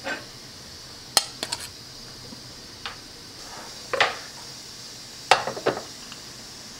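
Utensil clinking and tapping against a glass mixing bowl as shredded beef and minced garlic are dropped in: a few short, sharp clinks, some in quick pairs, over a faint steady hiss.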